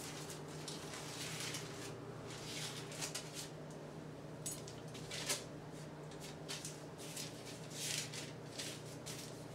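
Sheets of paper rustling and crinkling now and then as they are unfolded and leafed through, over a low steady hum.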